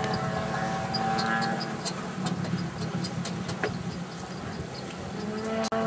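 Piston engine of a large radio-controlled model airplane running in flight. It fades somewhat in the middle as the plane moves away and grows louder again near the end, where it cuts out abruptly for an instant.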